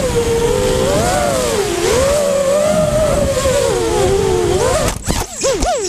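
Electric motors and propellers of an FPV 250 racing quadcopter whining, the pitch rising and falling with the throttle, with air rushing over the onboard camera's microphone. About five seconds in the whine breaks off abruptly into sharp knocks as the quad crashes.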